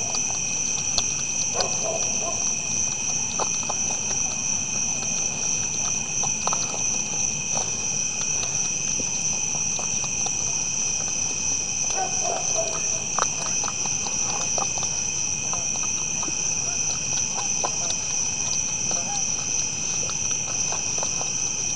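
Night insect chorus, a steady high-pitched trilling at two pitches, with irregular crunches and clicks from whitetail bucks eating feed from bowls near the microphone.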